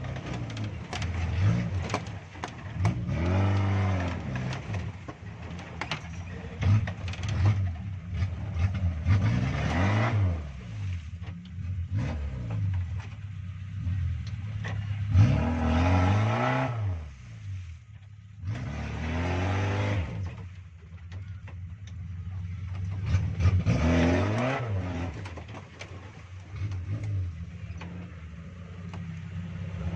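Suzuki Jimny 4x4 engine revving up and falling back again and again, about five surges, as it crawls over rocks in low gear. Short knocks are scattered through it.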